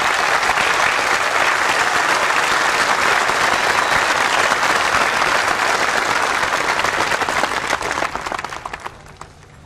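Large crowd applauding, a dense steady clatter of many hands clapping that dies away about nine seconds in.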